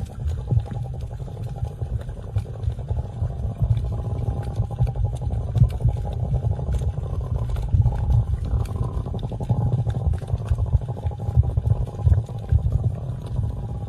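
Low, continuous rumbling snore-like sound underwater, given out as a sea turtle snoring.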